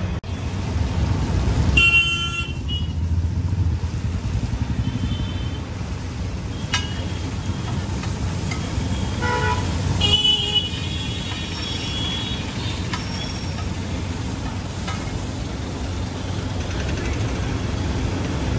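Street traffic with a steady low hum and car horns tooting briefly, most strongly about two seconds in and again about ten seconds in. A few short metallic clinks of a spatula on an iron tawa.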